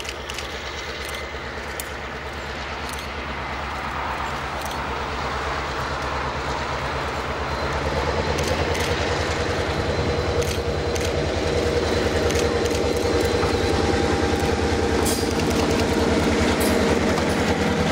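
Western Pacific 918-D, an EMD F7A diesel locomotive, approaching at the head of a freight train, its engine drone growing steadily louder as it nears. Wheels click over the rail joints.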